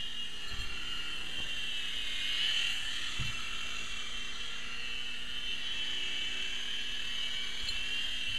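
A small remote-control toy helicopter's electric motor and rotor, a steady high-pitched whine as it hovers and flies, swelling slightly a couple of seconds in. Two soft, low thumps come partway through.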